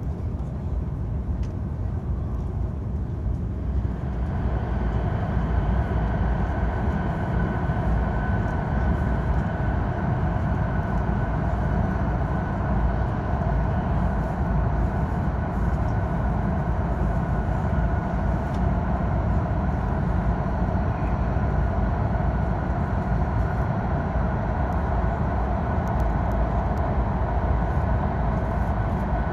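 Cabin noise of a Hokkaido Shinkansen train running at speed: a steady, deep rumble of wheels and rushing air with a faint steady whine over it. It grows louder and fuller about four seconds in, as the train enters a tunnel.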